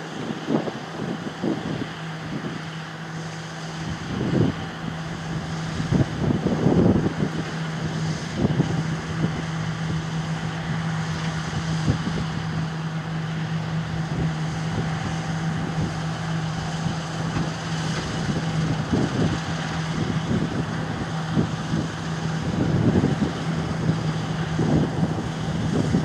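Diesel engine of harvest machinery running at a steady pitch, with gusts of wind buffeting the microphone now and then.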